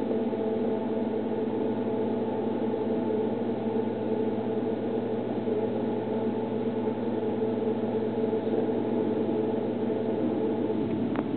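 Steady machinery hum of a cruise ship under way: a constant low drone with several steady tones over it, unchanging throughout.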